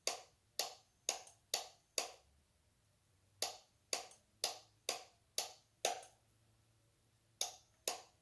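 Sharp clicks in groups of six, about half a second apart, with a pause of about a second and a half between groups: a power switch flipped on and off by hand in the three-pulse temporal fire-alarm pattern.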